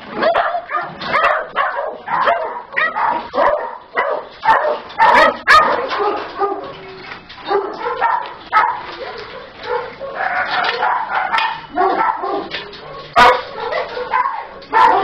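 Small dogs barking and yipping over and over, the calls short and close together.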